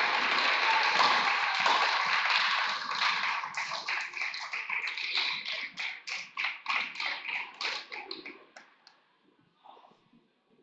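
Crowd applauding in a gym: dense applause breaks up after about three seconds into scattered single claps that die away near the end.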